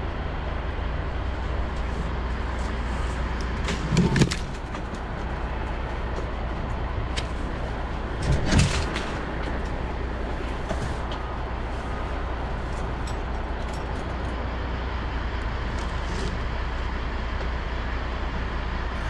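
Truck-mounted crane's engine running steadily under load, with two short knocks about four and eight and a half seconds in.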